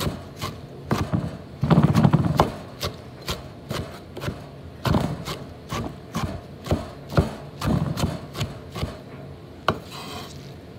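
Kitchen knife chopping spinach leaves on a wooden cutting board: an uneven run of knocks, about two a second, with a brief louder scuffing about two seconds in.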